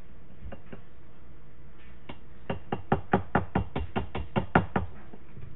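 A quick run of about a dozen sharp knocks, roughly five a second, from a hard kitchen vessel being knocked or tapped while dried thyme is handled. Two faint clicks come first.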